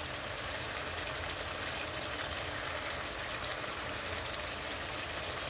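Capitaine fish pieces frying in oil and lime juice in a frying pan: a steady sizzle with fine crackles.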